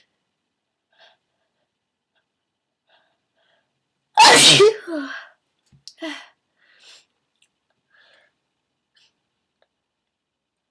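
A woman sneezing once, loudly and suddenly, about four seconds in, the sneeze brought on by tickling her nose with a bobby pin. A few shorter, quieter sounds follow over the next couple of seconds, with faint sounds before it.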